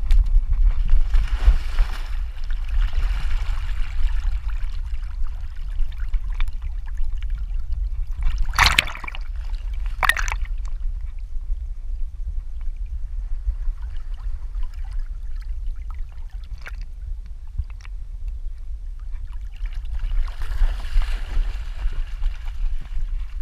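A border collie swimming, heard from a camera on its back: water sloshing and splashing with a steady low rumble. Heavier splashing comes near the start and again near the end, and two short, loud splashes about a second and a half apart fall near the middle.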